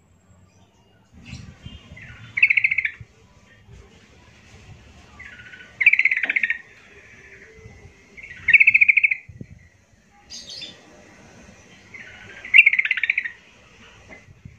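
Yellow-vented bulbul (trucukan) singing: four short, rapid warbling phrases about three seconds apart.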